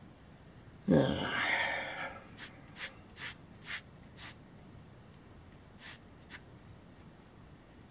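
A loud breathy exhale, like a sigh, about a second in. It is followed by several short, soft rustles of thick cotton cord being drawn through the strands of a monkey's fist knot.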